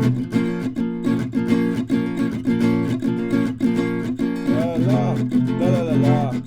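A recorded song with strummed acoustic guitar played through Magico S5 floor-standing loudspeakers. It starts abruptly after a brief silence, and a wavering higher melodic line joins a little past halfway.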